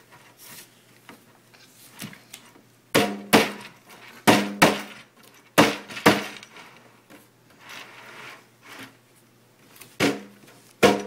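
A baby slapping the skin head of a hand drum with his open palms: about eight sharp slaps, mostly in pairs, each with a short low ring, with a pause of a few seconds before the last two.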